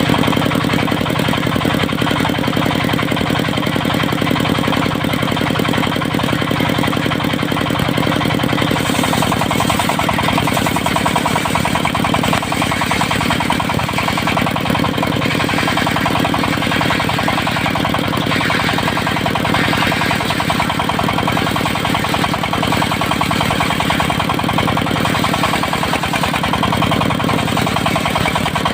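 Diesel engine of a portable circular-saw sawmill running steadily with a rapid, even beat.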